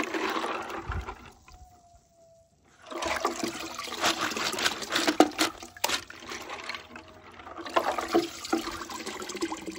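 Water sloshing and splashing as a plastic colander of scallop shells is dunked and swished in a bucket, rinsing muriatic acid off the shells, with a few sharp clicks of shells knocking together. The sloshing breaks off for a moment after the first second and starts again about three seconds in.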